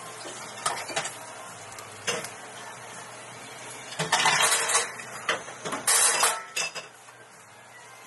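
Clinks and clatter of cafe ware at the counter as espresso is poured from a small metal pitcher over an iced latte topped with dalgona candy pieces: a few sharp clinks early on, then louder bursts of clattering about halfway through and again around six seconds in.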